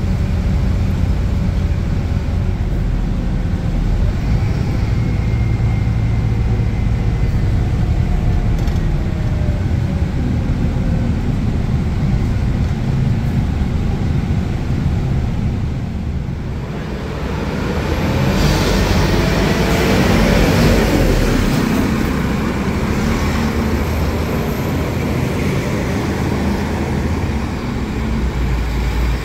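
Scania K280UB bus's diesel engine and ZF automatic gearbox under way: a steady drone with falling tones in the first few seconds, easing off about sixteen seconds in, then pulling harder with a rising whine that peaks a few seconds later and settles back.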